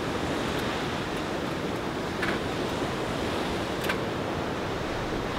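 Steady wind and surf noise from the open sea shore, with two brief light clicks or knocks, about two and four seconds in.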